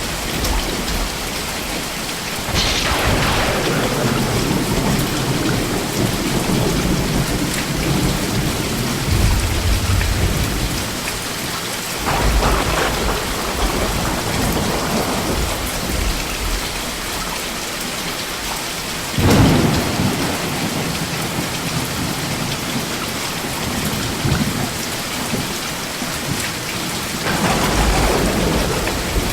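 Steady heavy rain with thunder: four claps, about two seconds in, about twelve seconds in, about nineteen seconds in (the loudest and sharpest) and near the end, each trailing off into a rolling rumble.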